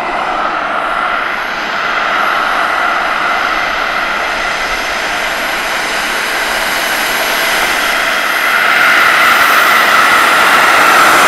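Model jet turbine of a radio-controlled Fouga Magister running as the jet taxis, a steady rushing whine with a thin high tone on top. About two-thirds of the way through, the whine climbs in pitch and gets louder as the throttle comes up.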